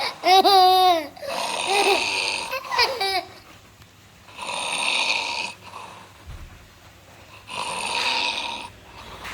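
A small child snoring loudly. There are three harsh, hissy snores, each about a second long and about three seconds apart, with quiet breathing between them.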